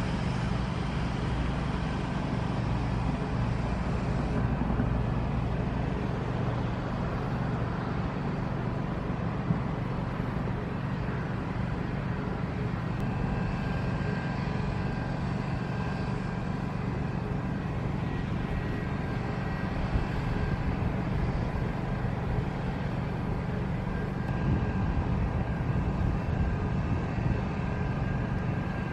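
Steady low engine drone with an even rumble of background noise and a faint hum, with no distinct events.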